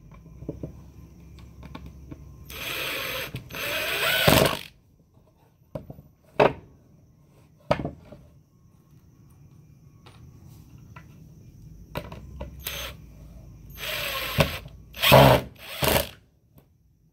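Ryobi cordless impact driver driving screws into a wooden planter box: two runs of about a second each a couple of seconds in, then several shorter runs near the end. A few sharp knocks come in between.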